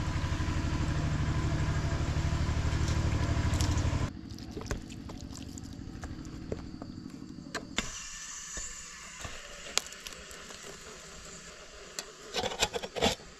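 A motor hums steadily for about four seconds and then stops abruptly, followed by soft handling clicks. Near the end a metal lid clatters several times as it is set onto a woven bamboo steaming basket on a pot.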